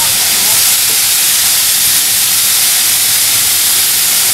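Steam locomotive No. 340 Frederick North, a 1945 Stephenson-built 0-6-0, hissing loudly and steadily as it lets off steam.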